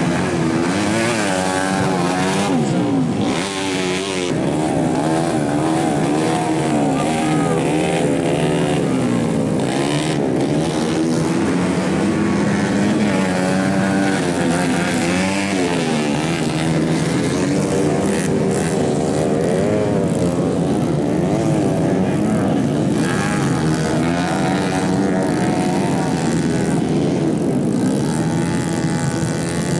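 Engines of small motocross bikes revving up and down, several overlapping, their pitch rising and falling as they ride the mud.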